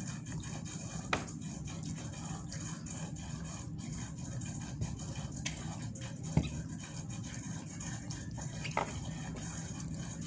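A toddler eating corn on the cob over a steady low background hum, with a few short sharp clicks of eating and handling the cob: one about a second in, the loudest about six seconds in, and another near nine seconds.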